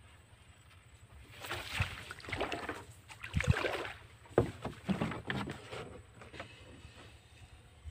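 Water splashing and sloshing around a small wooden boat, in irregular bursts over several seconds, with a couple of dull knocks on the hull.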